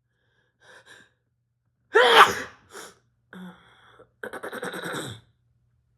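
A woman sneezing once, loudly, about two seconds in, after a short intake of breath. The sneeze comes from a head cold. A couple of breathy bursts follow it.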